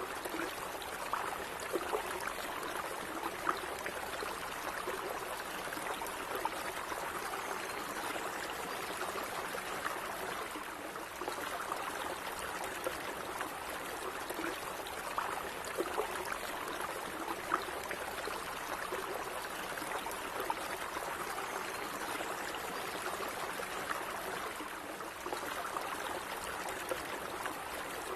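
A small stream of water running steadily, with a continuous burble and many small splashes and trickles.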